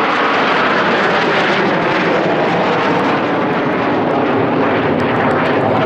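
Aermacchi MB-339 jet trainers' turbojet engines, several jets heard overhead as a loud, steady rushing noise.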